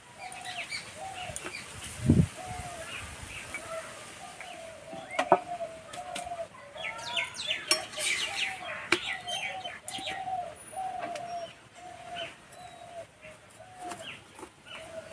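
Backyard birds: one bird repeats a short, even call about one and a half times a second while others chirp over it. A single heavy thump about two seconds in and a sharp click a few seconds later.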